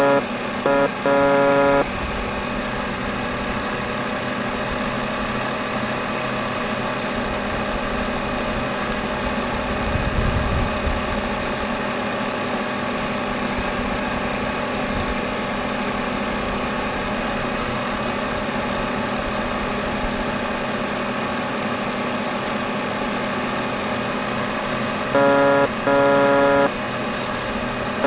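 RC race boat running on the water: a steady mechanical whirr with rushing water and wind noise, and a brief low rumble about ten seconds in. A loud buzzing horn-like tone sounds in short blasts at the start and twice near the end.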